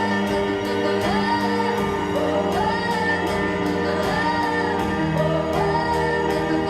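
Pop ballad backing track with a steady beat, and a female voice singing wordless rising-and-falling phrases over it.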